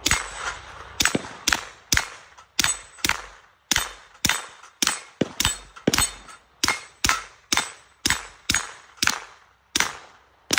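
A pistol-caliber firearm fired in a steady string of about twenty shots, roughly two a second, at steel targets. Many of the hits leave a short metallic ring.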